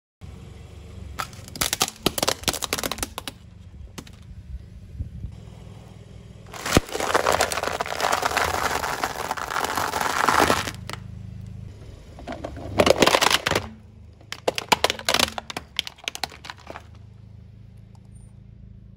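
A car tyre crushing things in several bursts of crackling and cracking. About seven seconds in comes a dense crunch lasting some four seconds, dry fusilli pasta being ground under the wheel; the later bursts of sharp cracks and snaps are a plastic toy truck breaking apart. A low steady hum runs beneath.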